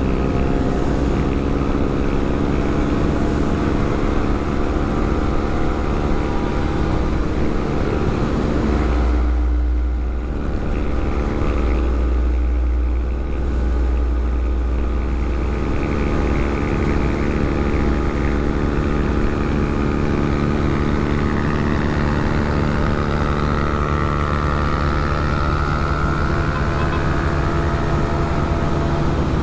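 Motorcycle engine running at a steady cruising speed while riding, with wind rumbling on the microphone and briefly drowning the engine about ten seconds in.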